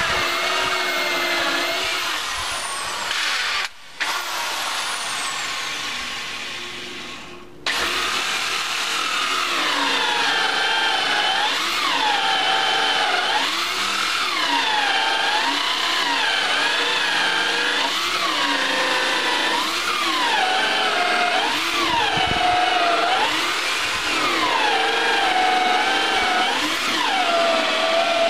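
Electric drill boring into wood, its motor whine dipping in pitch and recovering every second or two as the bit bites and eases off, with two brief stops in the first eight seconds.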